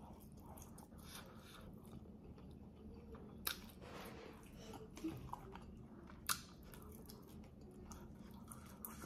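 Faint chewing of a piece of spicy Scorpion Chicken, with a few brief mouth clicks or smacks, the sharpest about six seconds in.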